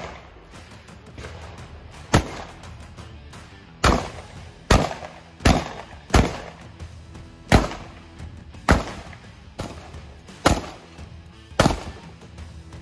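Shotgun fired in a string of about eleven shots at an uneven pace, mostly a second or less apart, over background music.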